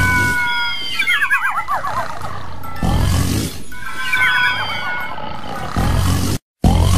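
Cartoon snoring sound effect: a rough snore on the in-breath, then a warbling whistle that slides down in pitch on the out-breath, repeating about every three seconds over light music. The sound cuts out briefly near the end.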